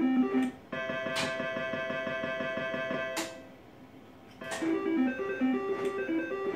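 IGT S2000 Triple Double Diamond Free Games slot machine's electronic game sounds: a quick stepping run of beeps, then a held electronic chord for about two and a half seconds with a few sharp clicks. After a short lull the spin button is pressed and the stepping beeps of a new reel spin start again.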